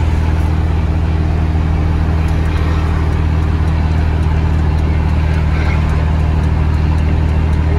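Mercedes-Benz 1113 truck's turbocharged six-cylinder diesel engine running at a steady cruise, heard from inside the cab as a deep, even drone with road noise.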